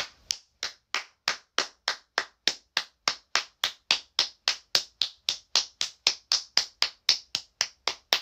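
One person clapping her hands in a steady, even rhythm, about three or four claps a second.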